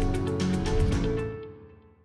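Background music ending, its last notes fading out over the final second.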